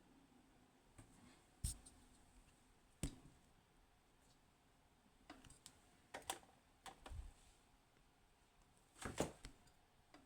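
A few scattered sharp clicks and taps of small objects being handled on a desk, about eight in all, with near silence between them; the loudest come about two seconds in and near the end.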